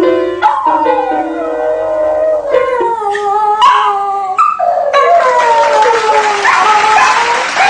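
A dog howling, a string of long drawn-out notes that slide down in pitch.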